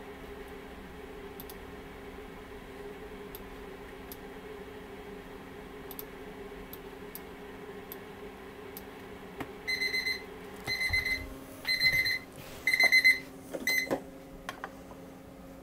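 Digital timer alarm going off in five short bursts of rapid high beeps, starting about ten seconds in and lasting about four seconds. It marks the end of a timed step in processing the print. A steady low hum runs underneath.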